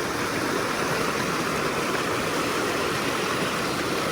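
Creek water rushing steadily, an even unbroken rush.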